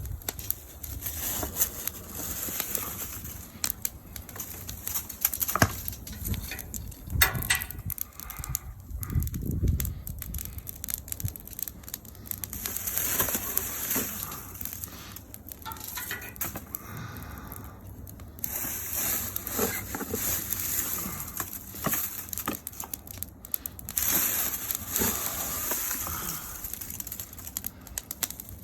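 Wood fire crackling, with irregular pops and snaps over a steady hiss.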